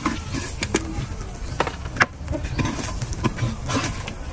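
A metal ladle clinks and scrapes against a large wok and a metal tray as fried meat is scooped out of the oil. The clicks come irregularly, about every half second to second, over a low rumbling background.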